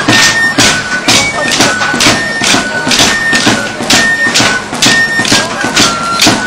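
Wooden dance sticks clacking together in the Mirandese pauliteiros stick dance, in a steady beat of a little over two strikes a second, over a thin piped melody.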